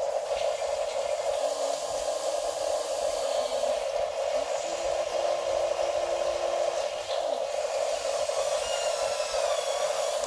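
Small electric motors of toy RC construction vehicles whirring steadily, with faint lower tones that step up and down as the motors change speed.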